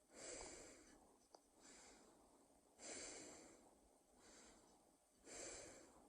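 A person breathing slowly and heavily, deliberately as a sleep-aid sound: five breaths about every 1.2 seconds, louder and softer ones alternating.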